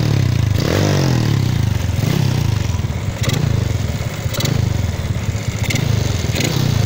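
Modified Yamaha Lagenda 110 single-cylinder four-stroke engine, built with a 58 block, an NSR carburettor and a 3 mm jack rod, running loud with the throttle opened and closed so the revs rise and fall several times. A few short clicks sound over it.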